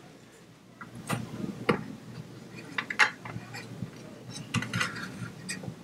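Scattered small clicks and taps of metal and plastic as a dual-fan heatsink assembly is handled and seated into a Shuttle DS81 mini PC's case. The sharpest clicks come about a second in and about three seconds in.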